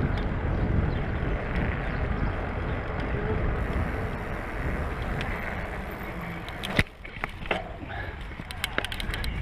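Mountain bike riding over brick pavers: wind on the microphone and the tyres' rumble. About seven seconds in there is a sharp click, then quieter rolling over grass with scattered ticks and rattles from the bike.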